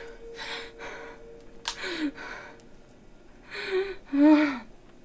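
A woman gasping with short, sharp breaths, then letting out two short moans near the end, the second the loudest.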